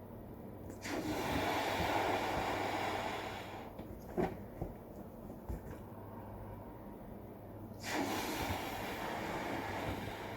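A person blowing into a rubber balloon to inflate it: two long exhaled breaths of about three seconds each, with a short click between them.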